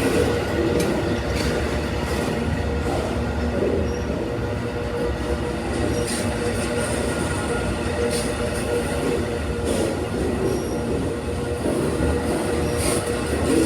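Amtrak Auto Train cars rolling past: a steady rumble of wheels on rail, with a faint held squeal and scattered short clicks.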